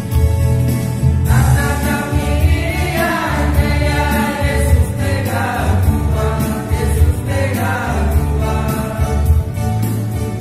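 Gospel praise song: voices singing together over a band backing with a steady, pulsing bass line. The singing comes in about a second in and goes on in phrases.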